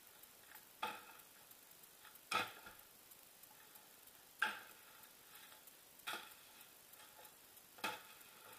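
Five short, sharp clicks with a slight ring, spaced about one and a half to two seconds apart.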